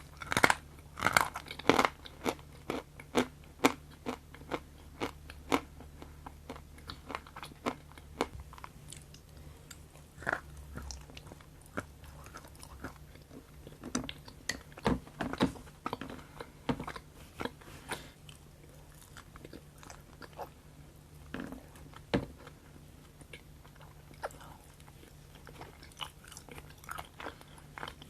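Close-miked chewing and biting of semi-moist chocolate: a stream of sharp crunchy clicks and wet mouth sounds, dense in the first few seconds and sparser after that.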